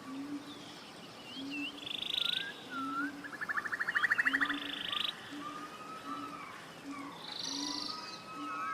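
Forest birdsong, several birds calling at once: slurred whistled notes and rapid buzzy trills. Under them a short low note repeats about once a second.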